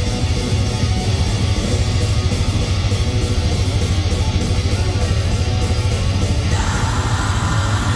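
Live heavy metal band playing loud and fast: distorted electric guitar over a fast, pounding low end of drums and bass, with a harsher layer joining about six and a half seconds in.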